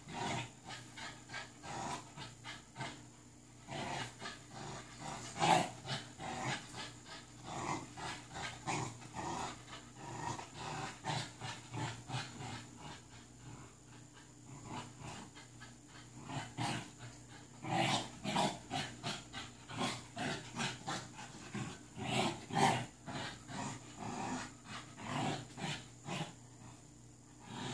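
American Bully puppy growling in play while tugging on a toy, in many short, irregular bursts mixed with scuffling and knocks.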